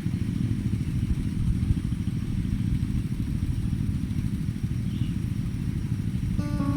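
Diesel tractor engine running steadily, a low even drone.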